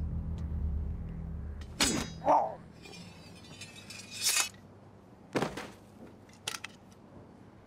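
A low rumble fades out, then a few sharp clinks and knocks follow, the loudest about two seconds in with a brief ringing, and others near four and five and a half seconds.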